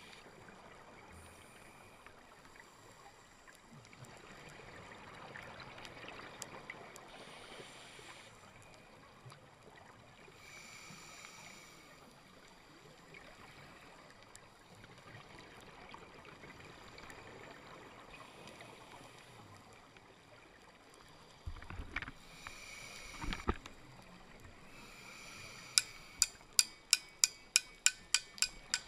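Scuba regulator exhaust bubbling in bursts every few seconds over a faint steady underwater hiss. Near the end a rapid, even run of sharp clicking taps starts, about three or four a second, louder than anything before it.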